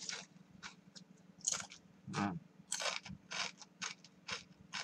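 Close-up crunching and chewing of hard-fried, thick-cut potato chips, a crisp crunch two or three times a second.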